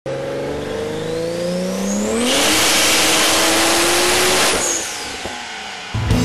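Race car sound effect: an engine revving up with steadily rising pitch for about two seconds, then a loud rushing pass-by that lasts about two seconds and fades out.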